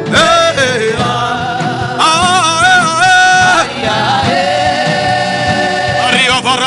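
Gospel-style sung worship chant: long, wavering held notes that slide between pitches over a steady sustained musical backing.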